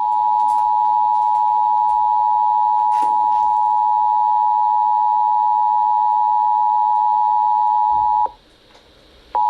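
Emergency Alert System attention signal: the steady two-tone alarm (853 and 960 Hz together) that comes before a required monthly test message. It sounds for about eight seconds and cuts off, and after about a second's pause another attention tone starts near the end.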